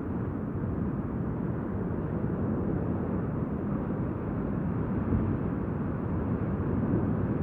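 Steady low machine noise with no distinct events, heard underwater from a remotely operated vehicle's thrusters as it moves over the seabed.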